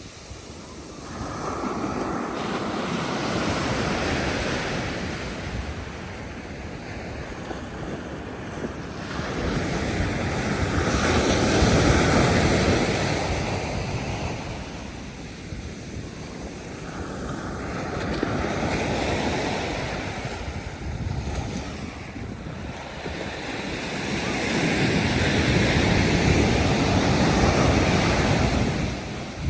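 Sea waves breaking and washing up the beach, swelling and fading four times, with wind buffeting the microphone.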